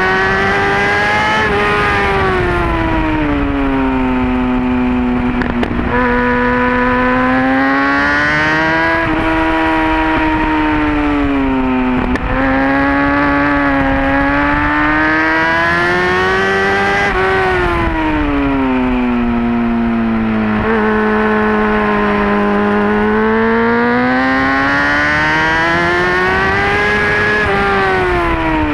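Kawasaki ZX-6R inline-four engine at full track speed, its pitch climbing in long pulls and falling away again several times as the bike accelerates and slows, with quick steps in pitch at the gear changes.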